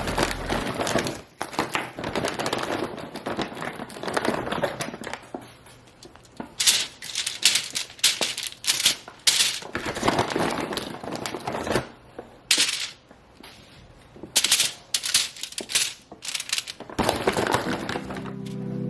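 A plastic bag of frozen plant-based chicken wings being handled: the packaging crinkles and rustles while the hard frozen pieces click and knock against each other, in uneven bursts.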